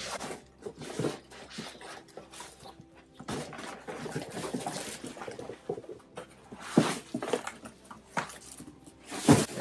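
Plastic bags and bubble wrap rustling and crinkling as they are pulled out of a cardboard box, with a few sharper crackles; the loudest come about seven seconds in and just before the end.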